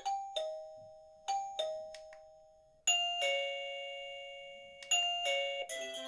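Arenti VBell1 wireless doorbell chime unit playing its preset melodies through its speaker. A two-note ding-dong rings and fades, then repeats about a second later. A different ding-dong comes about three seconds in, and a quicker multi-note tune starts near the end.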